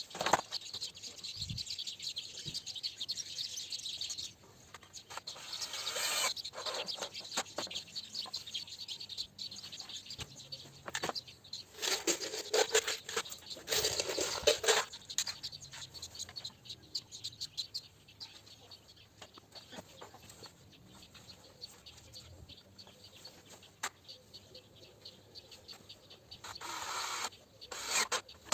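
Irregular clicks and knocks with several longer bursts of scraping or rustling, like hands handling and working on objects.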